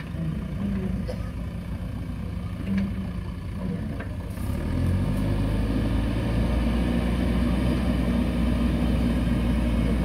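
Diesel engines of earthmoving machines, a JCB backhoe loader and an excavator, running steadily; about halfway through the engine sound gets louder and lower.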